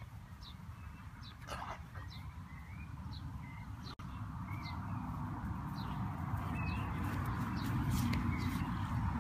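Short high bird chirps now and then over a low rumble of wind or handling on the microphone. The rumble grows louder toward the end.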